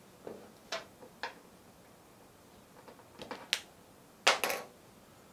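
Short, scattered clicks and crinkles of small windshield repair kit parts being handled. A few come in the first second or so, a cluster follows around three seconds in, and the loudest comes about four seconds in.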